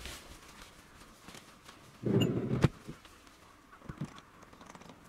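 Camping tarp being handled and pulled up against the side of a van: a short loud rustle of fabric about two seconds in that ends in a sharp knock, with fainter knocks and rustles around it.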